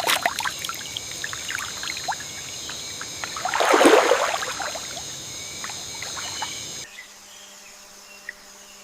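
Water splashing and trickling, with one louder splash about four seconds in, over a steady high insect buzz of several tones that cuts off suddenly about seven seconds in.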